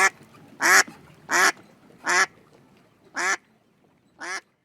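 A duck quacking: six quacks in a row, about one every 0.7 seconds, growing fainter and further apart toward the end.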